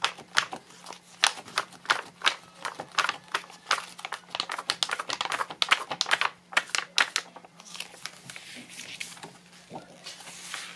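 A hardcover picture-book page being flipped quickly back and forth by hand, making a rapid run of papery flaps and snaps several times a second. About seven seconds in it eases into softer rustling as the page settles under the hand.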